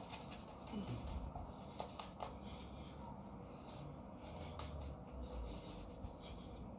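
Razor scraping through lathered stubble in a series of short, faint scratchy strokes.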